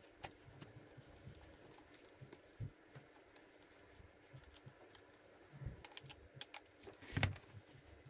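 Faint scattered clicks and taps of a screwdriver working on the plastic pressure-switch housing of a 12 V diaphragm water pump as it is screwed back together, with a quick run of sharper clicks near the end and a louder knock as the pump and screwdriver are set down on the wooden workbench.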